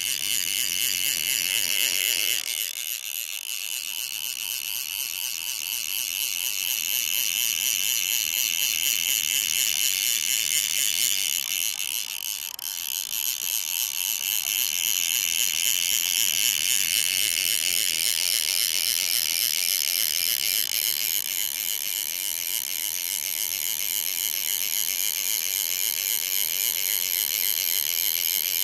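Fly reel's ratchet buzzing fast and steadily as line runs through it, easing off briefly about 3 and 12 seconds in.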